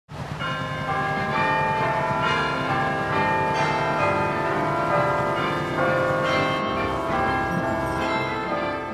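Church bells ringing in a peal, several bells struck again and again so that their tones overlap and hang on.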